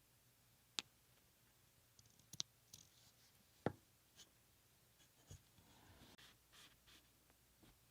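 Small sewing tools and fabric being handled: a few sharp clicks, three louder ones within the first four seconds, then light rustling and scraping.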